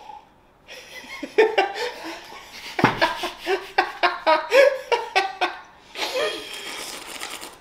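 A man's hearty laughter in quick repeated bursts, fading into breathy laughter near the end, with a single knock about three seconds in.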